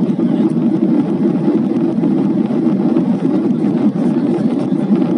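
Steady jet engine and airflow noise inside an airliner cabin during the climb after takeoff: a loud, even, deep rush that does not change.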